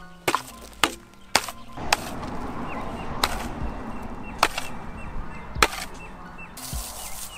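Square-mouth shovel blade slapping and hitting the packed dirt side of a dirt jump, about seven sharp hits over the first six seconds with scraping of dirt between them, compacting and smoothing the side.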